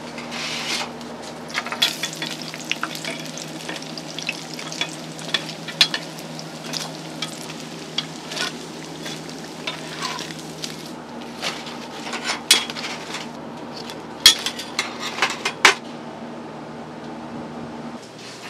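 Scallion bread sticks deep-frying in a wok of hot oil, a steady sizzle, with frequent sharp clinks of metal tongs and spatula against the wok and the steel tray as the sticks are turned and lifted out.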